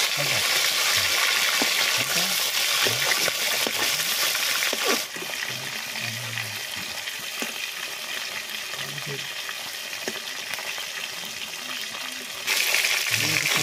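Rohu fish pieces frying in hot oil in a steel kadai: a steady sizzle, with the scrape and tap of a steel spatula turning them. The sizzle drops in level about five seconds in and comes back up near the end.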